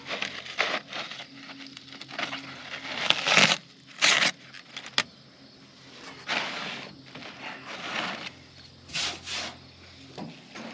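Irregular metal clinks and scrapes of hand work on farm equipment, over a steady low hum.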